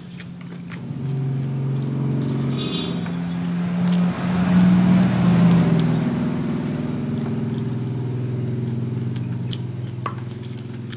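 Motor vehicle engine running close by, its pitch stepping up and getting louder between about two and six seconds in, then settling lower and fading toward the end.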